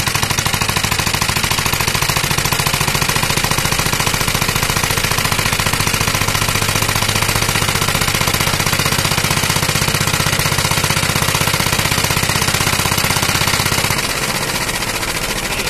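Single-cylinder piston engine on a test bench running on methanol, firing in a fast, even, hammering beat. About fourteen seconds in, the low thud weakens and the sound gets a little quieter.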